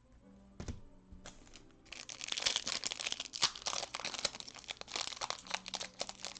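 Trading-card pack wrapper being torn open and crinkled by hand, a dense crackling that starts about two seconds in, after a couple of light knocks.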